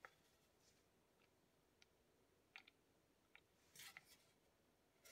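Near silence with a few faint, light clicks spread out, and a short soft brushing near the end, from fingers handling the thin metal hands on the clock movement's shaft.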